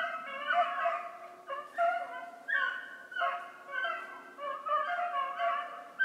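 Pack of beagles baying over and over with overlapping voices, the steady hound music of dogs running a rabbit's scent trail.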